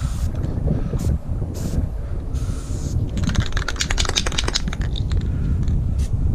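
Aerosol spray paint can hissing in short bursts as lines are sprayed onto a cinder block wall. About three seconds in, a fast clattering rattle for about a second and a half, typical of the can's mixing ball as the can is shaken. Wind rumbles on the microphone throughout.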